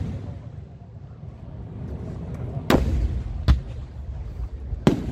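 Aerial firework shells bursting overhead: a low rumble, then three sharp bangs in the second half, the first about two and a half seconds in.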